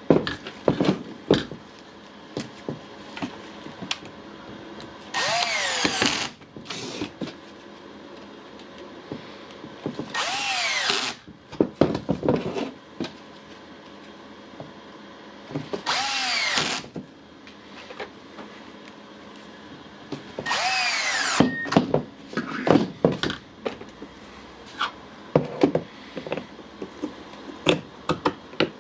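Milwaukee impact wrench run with no load in four short trigger pulls of about a second each, its motor whine falling in pitch as it spins down after each one. These are test runs after the anvil has been cleaned and the tool reassembled. Handling clicks and knocks come between the runs.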